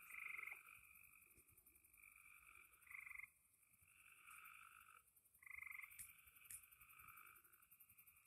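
Frogs trilling in a faint night chorus: repeated short pulsed trills from several frogs overlapping, over a steady high chirping of insects. There are two faint clicks about six seconds in.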